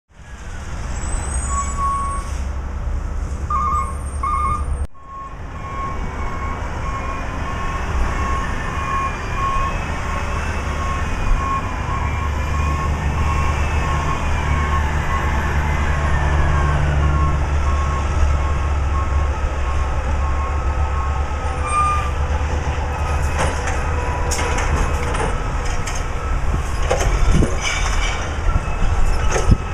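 Recycling garbage truck's engine running, its reversing alarm beeping steadily for much of the time, with the engine revving up for a few seconds midway. Knocks and clanks come in the last several seconds.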